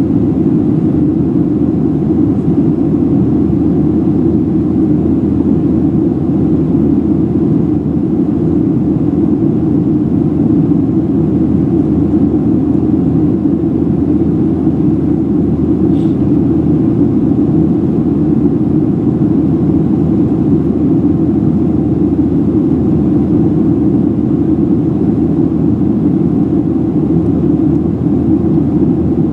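Steady cabin roar of a Boeing 737-700 climbing after takeoff: the hum of its CFM56-7B engines and the rush of air past the fuselage, heard from a passenger seat.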